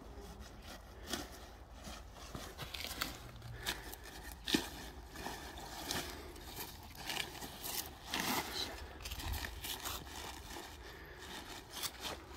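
Napa cabbage being harvested by hand: leaves rustling, crunching and tearing in irregular snaps as the head is handled and cut free. One sharper snap comes about four and a half seconds in.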